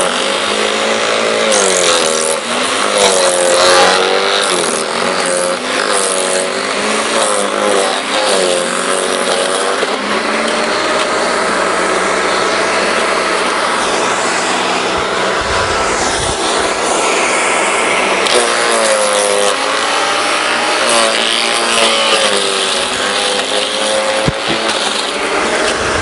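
Electric rotor-type garden shredder chewing a thick branch. The motor's pitch repeatedly dips and recovers as the rotor bites into the wood, with occasional sharp cracks.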